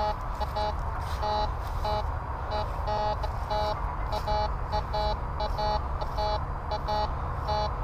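White's MX7 metal detector giving short, repeated beeps in quick, irregular bursts as its coil is swept back and forth over a shallow target that it reads as gold or foil.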